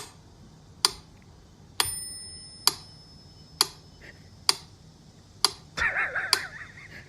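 Clock-like ticking: sharp ticks about once a second, two of them ringing on briefly like a small bell. Near the end a wavering pitched call lasting about a second sounds over the ticks.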